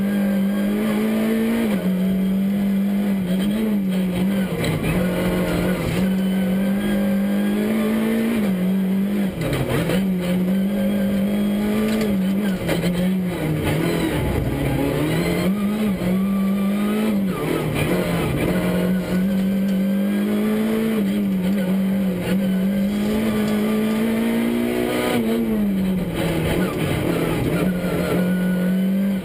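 Škoda Fabia R2 rally car's four-cylinder engine at full stage pace, heard from inside the cabin: revs climb steadily and drop sharply at each gear change, repeating many times.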